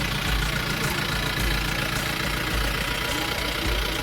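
Safari vehicle's engine idling steadily, with faint voices in the background.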